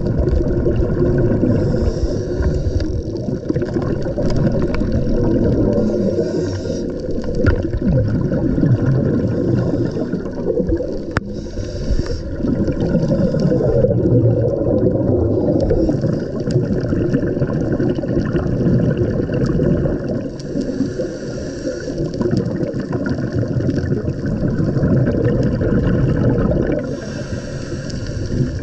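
Muffled underwater sound from a scuba dive: a low, steady rumble of water, with a regulator's breath and exhaled bubbles hissing every few seconds.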